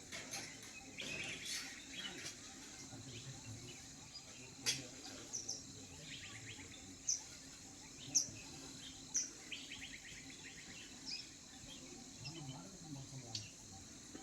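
Birds calling: short, high chirps repeated about once a second, with rapid trills in between.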